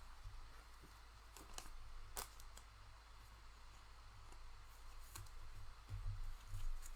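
Faint, scattered light clicks and taps of trading cards being handled, over a low steady hum.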